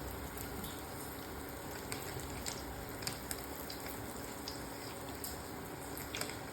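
Sel roti, a ring of rice-flour batter, deep-frying in hot oil: a steady, faint sizzle with scattered small crackles.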